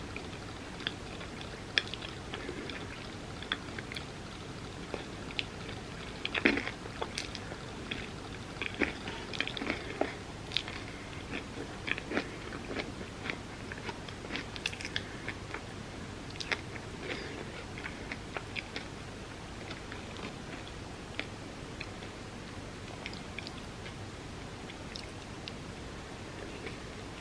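Close-miked chewing and biting: wet mouth clicks and soft crunches from eating a dessert lasagna of tortillas layered with chocolate and peanut butter, with a louder crunch about six seconds in.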